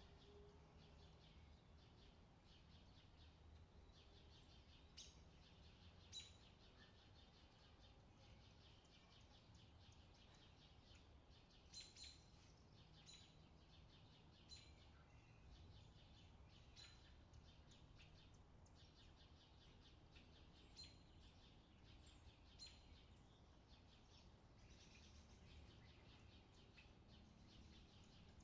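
Faint outdoor summer ambience: birds chirping in short, scattered calls over a steady low background hum.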